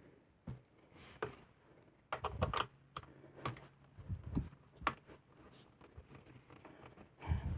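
Plastic clicks and knocks, irregular and in small clusters, as the feet of a Lasko box fan are handled and fitted into the base.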